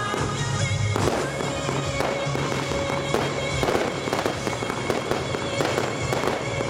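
Fireworks display: aerial shells bursting and crackling in quick succession, heard over music playing from loudspeakers.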